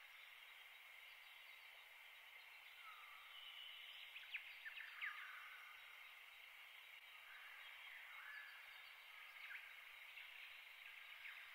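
Near silence: faint steady background hiss with a few faint, short chirps, the sharpest about four and five seconds in.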